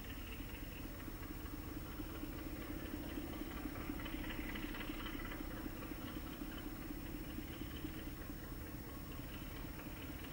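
Faint distant engine drone, steady, swelling slightly a few seconds in.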